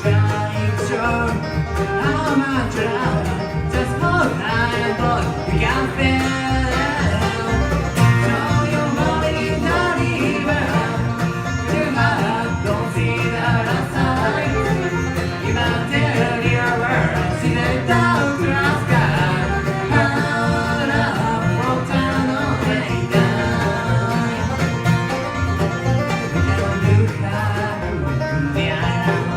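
Bluegrass band playing, with banjo and guitar picking.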